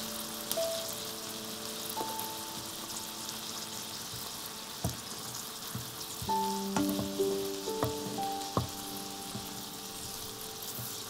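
Onion and rice frying in butter and broth in a frying pan, a steady sizzle. A wooden spoon stirs and knocks against the pan a few times in the second half, with soft melodic background music over it.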